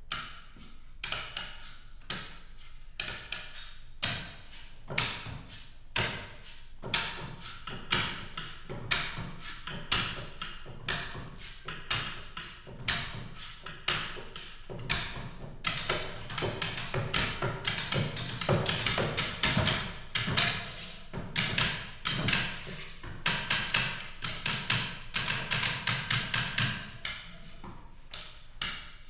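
Percussion ensemble of office supplies (pencils, a water bottle and a computer keyboard) tapping and clicking in rhythm, with sharp ticks and dull thuds. The playing thickens into a dense passage about halfway through and thins out near the end.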